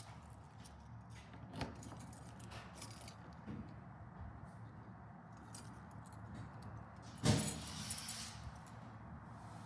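Keys jingling and clinking as they are handled, with scattered light clicks and a louder burst of jangling about seven seconds in.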